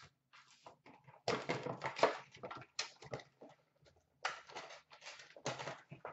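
Foil trading-card pack wrappers crinkling and rustling in several short bursts, the loudest starting about a second in.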